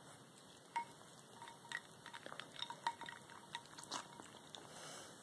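Faint clinks and ticks of ice cubes knocking against each other and the ceramic bowl, with small drips and splashes of water, as a ferret noses about in the ice water. The sharpest knock comes about four seconds in.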